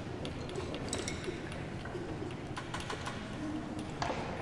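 Quiet hall with faint murmuring from the audience and scattered small clicks and knocks of people moving, with a slightly sharper click about four seconds in.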